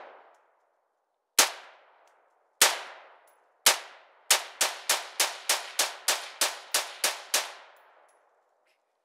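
AR-15 rifle firing in semi-automatic: three single shots about a second apart, then a rapid string of about thirteen shots at roughly four a second. Each shot has a ringing tail.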